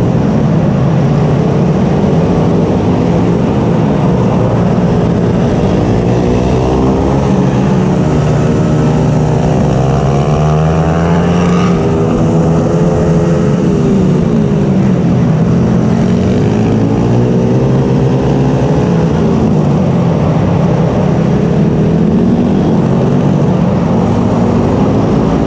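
Racing mini bike's small engine running hard, its pitch climbing and dropping over and over as the rider works the throttle through a lap. A second engine note overlaps it in the middle, with another bike running close.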